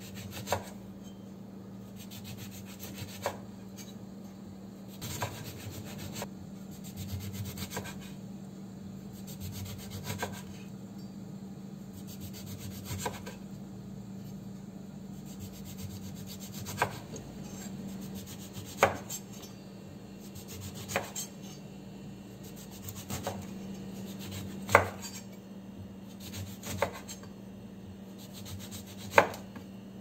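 Chef's knife slicing a lemon into rounds on a wooden cutting board. The blade rasps through the rind, then knocks sharply against the board, about once every two seconds, the loudest knocks near the end.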